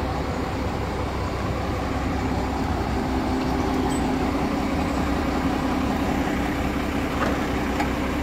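Hydraulic excavator's diesel engine running steadily under work, with a steady low hum coming in about three seconds in.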